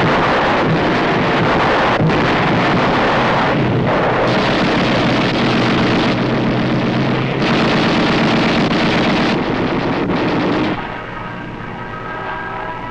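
Battle sound effects of an air attack: a continuous loud din of bomb explosions and gunfire over engine noise. About eleven seconds in, it gives way to the steady drone of a propeller aircraft's engine.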